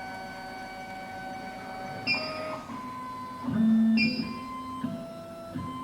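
Background music: plucked guitar-like notes over held tones, changing pitch every second or so.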